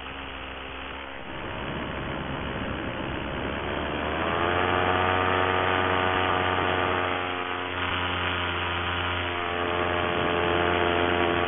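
Paramotor engine and propeller running in flight. It is throttled up about four seconds in, its pitch rising, and held at high power, with a brief dip in power near eight seconds.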